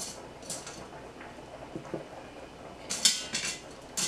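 Kitchen tongs clinking and scraping against the stainless steel inner pot of an Instant Pot as cooked ribs are lifted out. There are a few sharp clicks, the loudest about three seconds in.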